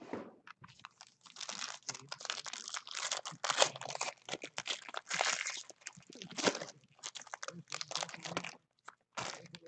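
Foil wrapper of a trading-card pack being crinkled and torn open by hand: dense crackling that starts about a second in and stops near the end, with one short crinkle just after.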